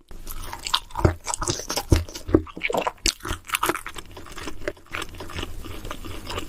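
Close-miked eating: a person biting and chewing crunchy food, a rapid irregular run of crisp crunches, with the sharpest bites about one second and two to two and a half seconds in.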